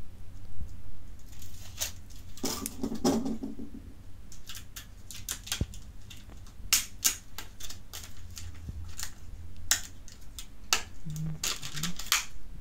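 Clear plastic packaging of a RAM module being pried open by hand: irregular plastic clicks and crackles.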